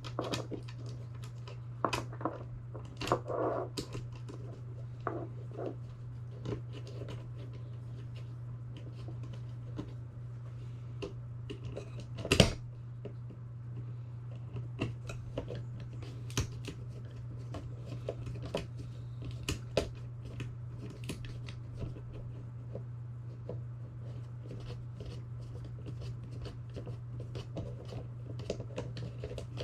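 Hands working with small bracket hardware and plastic parts: irregular clicks, scrapes and taps, with one sharp knock about twelve seconds in, over a steady low hum.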